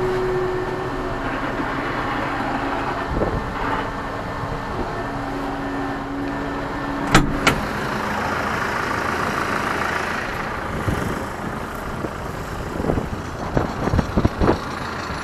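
Ursus C-392 tractor's diesel engine idling steadily. A sharp knock comes about seven seconds in, and a handful of knocks come near the end.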